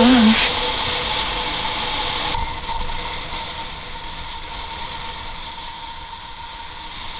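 Riding noise on a helmet camera aboard a moving motorcycle: a steady rush of wind and engine, fading gradually lower after a music track ends about half a second in.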